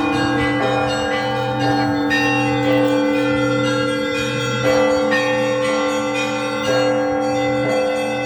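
Russian Orthodox church bells ringing: several bells of different pitches struck in turn, a fresh stroke every half second to two seconds, their long tones ringing on and overlapping.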